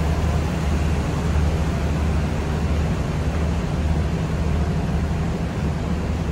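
Steady low droning hum with a hiss over it, from the idling machinery of a parked diesel-hauled passenger train standing at the platform.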